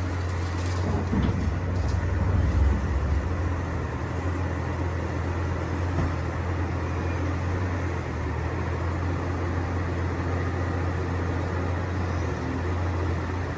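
Excavator's diesel engine running steadily with a low rumble.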